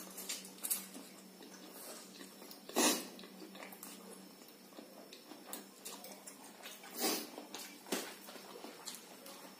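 Two people eating very spicy instant noodles up close: chewing and slurping, with a few short, sharp puffs of breath about three, seven and eight seconds in as they blow against the chili heat, and light clicks of forks on plates.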